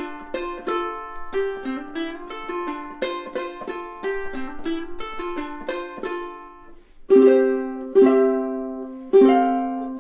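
Snail S60-T all-solid acacia tenor ukulele fingerpicked in a quick run of single notes, then, about two-thirds of the way in, strummed chords roughly once a second.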